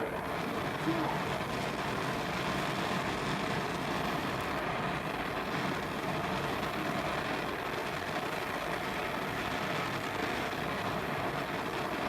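Brazing torch flame running with a steady hiss, heating a cracked steel tool part before brazing rod is applied.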